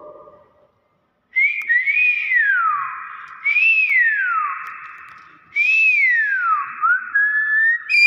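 Hill myna whistling: a series of clear whistles, three of them rising briefly and then sliding down over about a second each, with short rising notes near the end.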